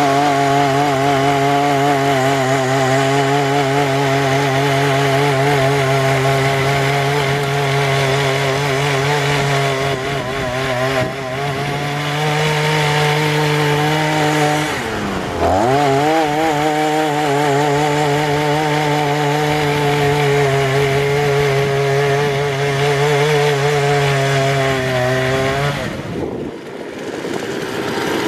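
Petrol brush cutter engine running hard at high revs, driving a tiller attachment whose tines churn through garden soil. The engine pitch dips sharply once about halfway through, then drops away near the end before picking up again.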